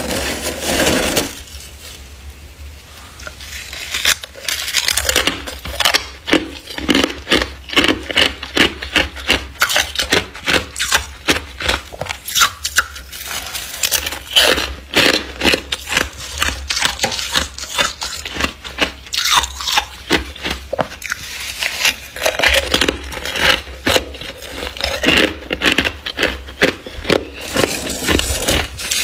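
Thick frost built up inside a freezer being scraped and crunched: a long run of short, crisp crunches, about two or three a second, after a quieter stretch near the start.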